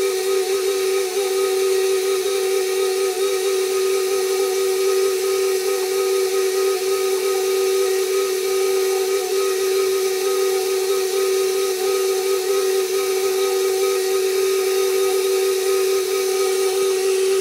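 KitchenAid Professional 5 Plus stand mixer running at a constant speed, its motor giving a steady whine with a hiss over it, as the flat beater works a thick ground-meat mixture.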